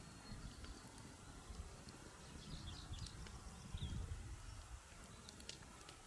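Faint open-country ambience: an unsteady low wind rumble on the microphone, with a few short bird chirps about two and a half and four seconds in.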